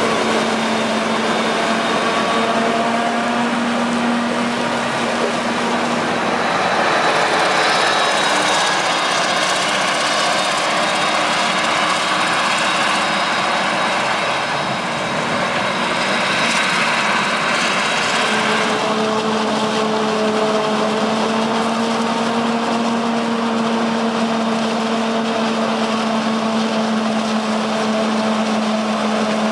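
Claas Jaguar 970 self-propelled forage harvester with Orbis 750 corn header running under load while chopping silage maize, together with a Claas Axion tractor pulling a silage trailer alongside: a loud, steady mechanical hum over a rushing noise. The hum fades somewhat in the middle and comes back strongly about two-thirds of the way through.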